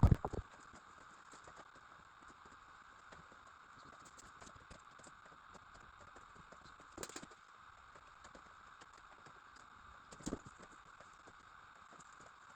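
Quiet room tone: a faint steady hiss with scattered soft clicks, a brief thump right at the start, and two slightly louder knocks, about seven and ten seconds in.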